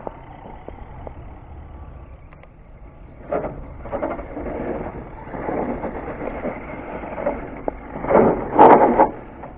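Radio-controlled Axial SCX10 crawler with a Castle Mamba X brushless motor driving through snow, in several irregular throttle bursts of motor and tyre noise; the loudest comes near the end.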